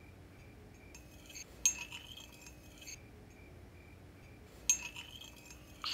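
Teaspoon clinking against a porcelain teacup as it is slowly stirred: two bright, ringing strikes about three seconds apart, with fainter clinks around them and a faint steady high tone underneath.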